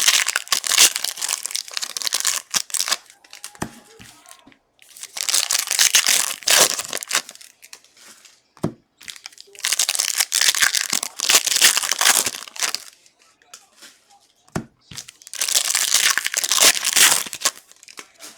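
Trading-card pack wrappers crinkling and tearing as packs are ripped open, in four bursts of about three seconds each.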